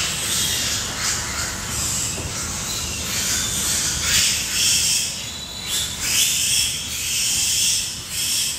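Pigs squealing in a pig barn, a series of short shrill squeals one after another, loudest in the second half, over a steady hiss.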